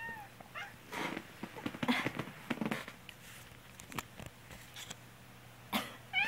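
A person with a cold coughs a few times, starting about a second in. A cat meows in response, with one meow trailing off at the start and another beginning near the end.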